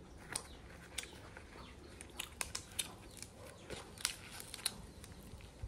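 Irregular sharp crackles and clicks of a leaf-wrapped food packet being handled and opened, with close-up chewing.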